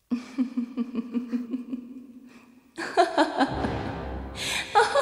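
Laughter in a quick run of pulses, about five a second, fading away over the first two and a half seconds. Ominous music then comes in loudly near three seconds in, with a deep low rumble.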